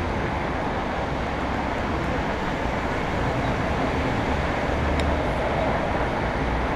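Steady outdoor background noise with a fluctuating low rumble and no clear events; a faint click about five seconds in.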